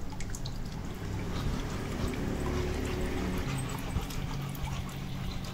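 Water trickling and pouring, with scattered small splashes over a low steady hum.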